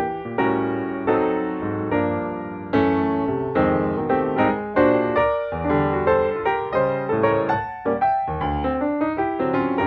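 Background piano music, with notes struck one after another in a quick, even run.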